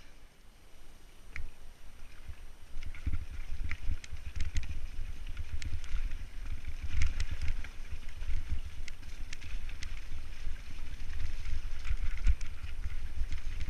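Wind buffeting a helmet-mounted camera microphone as a mountain bike rolls down a muddy, snowy track, with scattered sharp clicks and rattles from the bike and the stones under its tyres.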